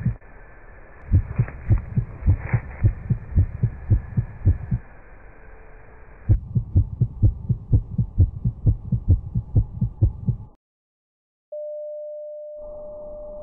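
A steady run of dull, low thumps, about three a second, in two stretches with a short gap between them. It cuts off about ten and a half seconds in, and a second later a single steady tone starts and holds.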